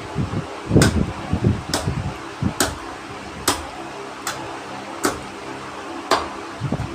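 Seven sharp clicks, about one every 0.9 seconds, over a steady background noise, with some duller low thuds among the first few.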